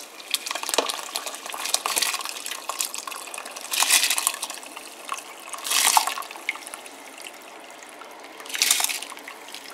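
Basmati rice poured into a pot of boiling water in several goes, each pour a splashing rush, over the steady bubbling of the boil.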